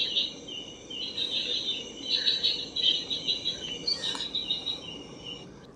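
Crickets and other night insects chirping in rapid pulsed trills that come and go, over a steady high insect drone.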